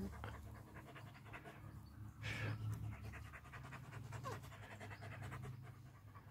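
A large Nordic Timber dog panting softly with its mouth open.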